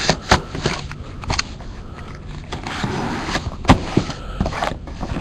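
A cardboard trading-card hobby box being cut open with a utility knife: scraping cuts and clicks of the blade and box. There is one sharp knock about two-thirds through.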